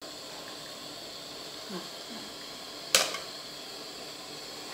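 An aluminium pot of fermented-fish broth boiling with a steady hiss. About three seconds in comes one sharp knock of metal on metal with a short ring, from the mesh strainer striking the pot.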